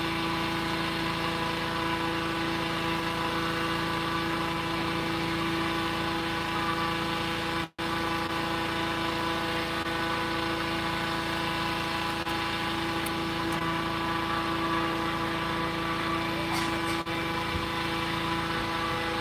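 Hot air balloon inflator fan running steadily while it blows cold air into the envelope, a constant drone with fixed pitch. The sound cuts out for an instant about eight seconds in.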